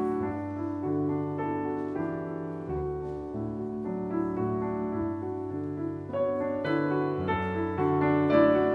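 Grand piano playing a solo passage of struck, sustained chords and melody. It grows louder and moves higher about six seconds in.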